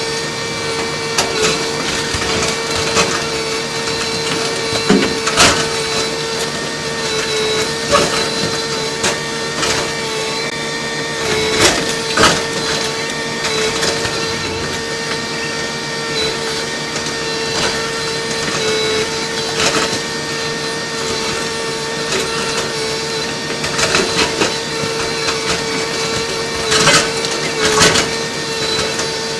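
Kobelco SK220LC Mark IV hydraulic excavator running with a steady whine as its bucket breaks down a masonry wall, with scattered crunching and clattering of falling debris. The loudest crashes come about 5 and 12 seconds in and again near the end.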